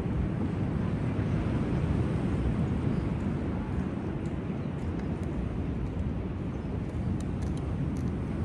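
Steady low rumble of ocean surf at the beach.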